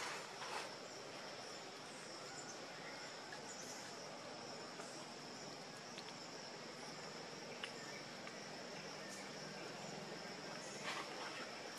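Steady high-pitched drone of insects in tropical forest undergrowth, with a few faint scattered clicks.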